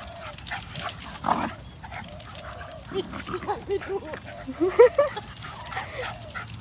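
Small dogs yipping and grunting as they play-chase, with a quick run of short, rising yips about three seconds in that grows loudest near the five-second mark.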